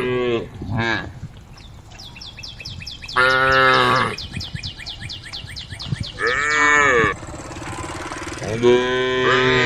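Cattle mooing to call the herd: a call ending just after the start, a short one about a second in, another about three seconds in, one about six seconds in, and a longer one near the end, several bending down in pitch as they fade.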